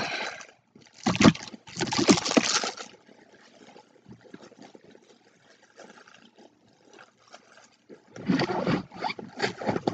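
Rustling and handling noise from small objects being moved about in a bag, in two loud bursts near the start, faint scattered ticks in the middle and more rustling near the end.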